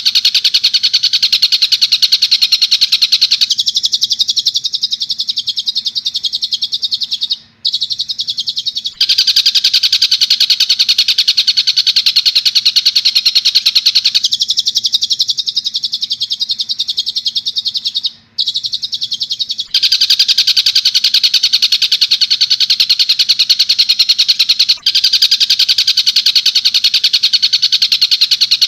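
Tengkek buto kingfisher calling in a loud, rapid, continuous rattle, as played in a birdsong training recording. The rattle gives way twice, at about 3.5 s and about 14 s in, to quieter stretches of a different, lower bird call about five seconds long.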